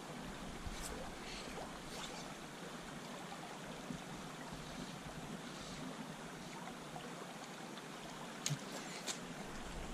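Shallow river flowing over a gravel run, a steady rippling wash of water. A few short sharp clicks sound over it, the two loudest near the end.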